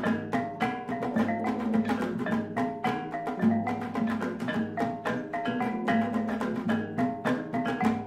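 Kulintang ensemble playing: a row of eight small bossed gongs struck with a pair of wooden beaters in a fast, dense ringing melody, over the wooden beat of a dabakan drum and low sustained tones.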